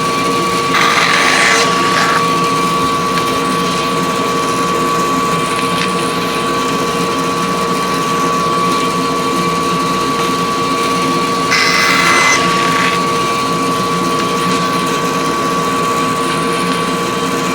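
Bandsaw and shop vacuum running together with a steady whine and hum. Twice, about a second in and again near twelve seconds in, a brief higher noise lasting a second or so as the blade cuts through a board.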